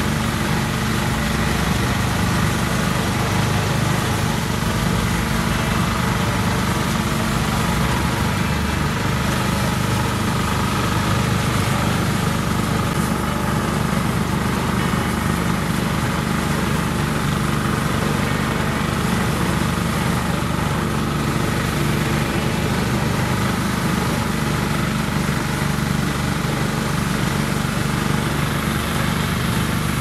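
Engine-driven portable rice thresher running steadily while rice stalks are fed into its drum.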